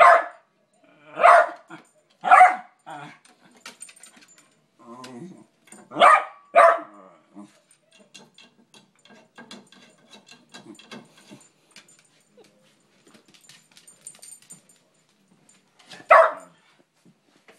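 West Highland White Terrier barking sharply while trying to get at its squeaky toy: five barks in the first seven seconds, a long pause filled with faint ticks and scuffles, then one more bark near the end.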